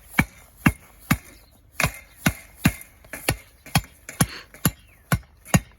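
A tamping bar pounding stones and dirt into the hole around a new vineyard post, packing the fill tight. It lands sharp, even strikes, about two a second.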